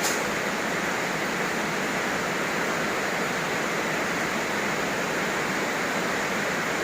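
Heavy rain falling steadily, an even unbroken wash of noise.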